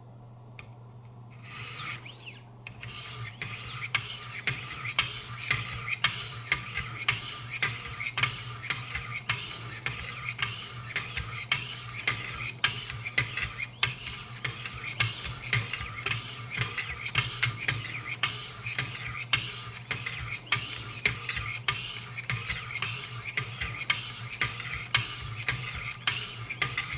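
600-grit Wicked Edge sharpening stones stroking along a knife blade's edge, a long run of rapid, evenly repeated scraping strokes that begins about two seconds in.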